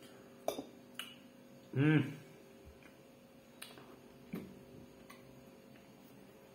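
Scattered soft mouth clicks and smacks of eating, about half a dozen in all, with a short hummed 'mm' that rises and falls in pitch about two seconds in. A faint steady electrical hum lies underneath.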